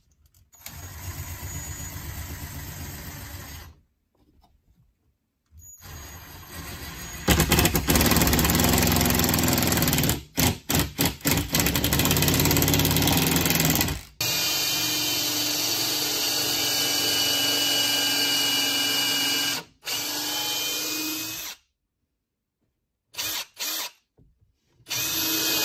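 Ryobi cordless drill running in repeated bursts as it drills into the wooden cabinet frames. Several seconds in, the trigger is pulsed on and off quickly, then the motor runs steadily for several seconds with a whine.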